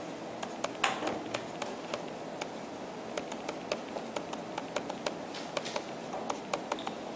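Light, irregular taps and clicks of a stylus on a pen tablet while handwriting, several a second, over steady room noise.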